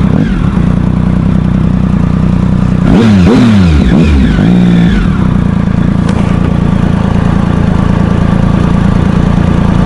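Motorcycle engine running as the bike pulls up to a stop. About three seconds in, the revs fall in a few quick drops, and then the engine idles steadily.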